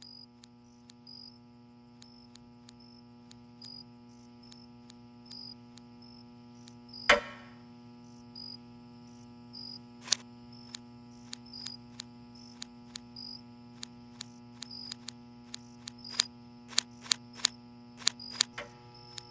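A steady electric-sounding hum drone with a faint high chirp repeating a little under twice a second. Over it come sharp typewriter keystrokes: one loud strike about seven seconds in, then scattered strokes that quicken into a fast run near the end.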